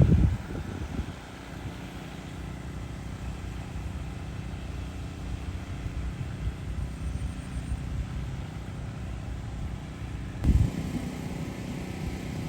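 Agricultural spraying drone's rotors humming steadily in flight, under a low rumble of wind on the microphone, with two loud low thumps at the start and about ten and a half seconds in.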